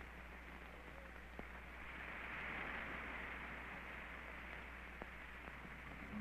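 Steady hiss and low hum of an early film soundtrack, with a few faint clicks; the hiss swells slightly around the middle and then settles.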